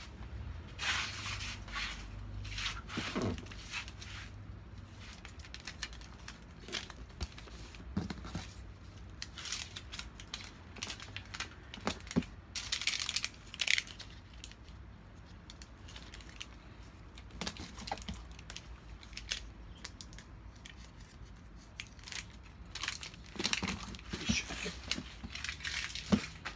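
Handling stickers peeled from their backing and pressed by hand onto a cardboard box wrapped in plastic stretch film: irregular crinkling and rustling of film and paper with light taps, loudest in a longer peeling stretch about halfway through.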